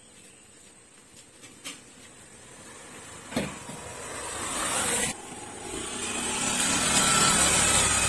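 Yamaha commuter motorcycle's engine running as it rides up, growing steadily louder over the second half. A single short knock comes about three and a half seconds in.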